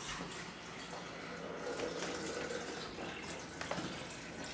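Water poured in a steady stream into a drip coffee maker's water reservoir.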